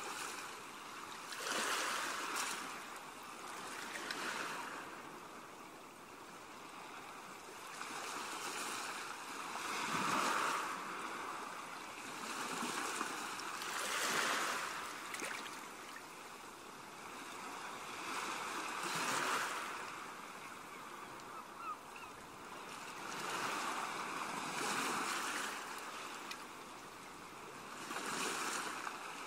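Ocean waves breaking and washing back, swelling and fading every few seconds.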